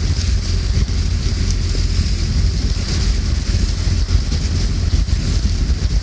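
Wind rumbling on the microphone over a steady hiss of rain during a rainstorm.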